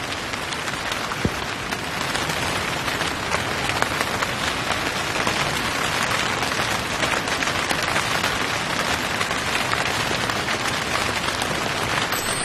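Heavy rain falling, a dense patter of drops striking a surface, a little louder from about two seconds in.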